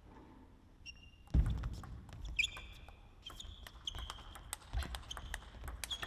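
Table tennis rally: the celluloid-type ball clicking sharply back and forth off the bats and table, with shoe squeaks on the hall floor and a couple of heavier thuds from footwork.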